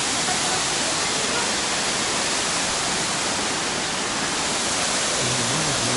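Waterfall at close range: a steady, even rush of falling water.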